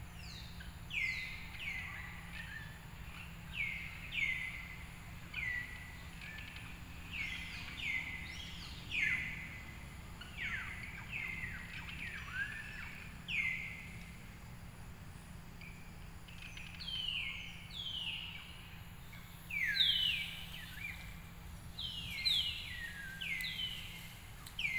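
Bird calls: short high chirps, each sliding quickly down in pitch, repeated irregularly about once a second and sometimes in quick runs of two or three, over a low steady background rumble.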